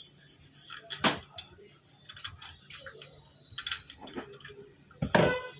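Scattered clicks and metallic knocks of hand tools and parts being handled on a scooter engine, as a nut is fitted, with a sharper knock about a second in and a louder ringing clink near the end.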